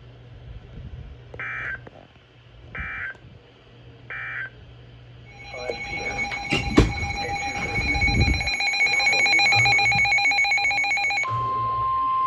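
Three short, buzzy data bursts about a second and a half apart: the EAS end-of-message code closing the weather warning. Then a louder ringing, alarm-like sound of several steady tones, with a sharp knock about seven seconds in. Near the end a single steady tone of about 1 kHz sets in, like a weather-radio alert tone.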